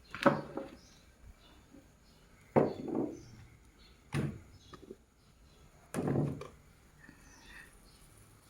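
Four sharp knocks of a hard object against a hard surface, spaced a second or two apart, each with a brief hollow ring-out.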